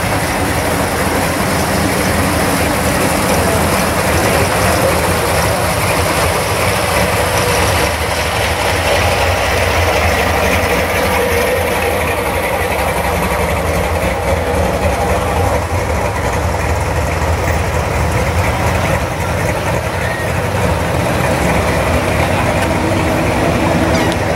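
Engines of classic cars and hot rods running at low speed as they roll past one after another, a steady low exhaust rumble with no hard revving.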